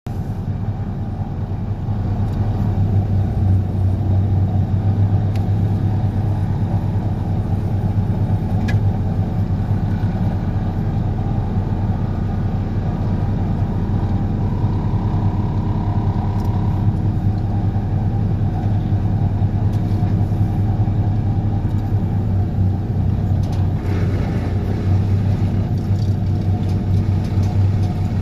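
DPD350T excavator-mounted vibratory hammer running, shaking a steel sheet pile into the ground: a loud, steady, deep rumble that grows a little louder about two seconds in.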